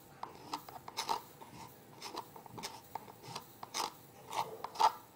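Light, irregular plastic clicks and scrapes as wet hydrophobic sand is tipped out of a plastic container into a small plastic funnel, with a few sharper taps near the end.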